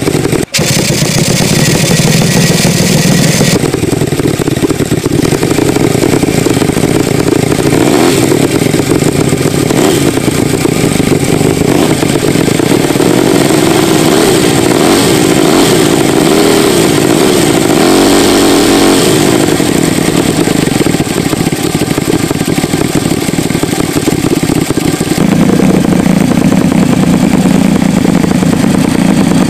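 Homemade two-cylinder engine, built from scrap parts including an old air-compressor body and a Honda cylinder head, running loud with its speed rising and falling. The sound changes abruptly about four seconds in and again near the end.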